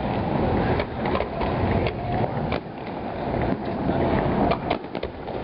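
Fireworks going off: scattered sharp pops and bangs, with a quick cluster of them near the end, over a steady rumbling background.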